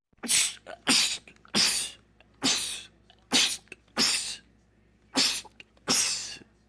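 A man sneezing eight times in quick succession, a little under a second between sneezes, each one a short sharp burst.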